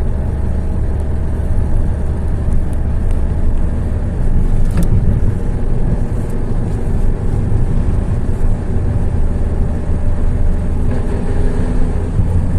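A motor vehicle running steadily, a low rumble.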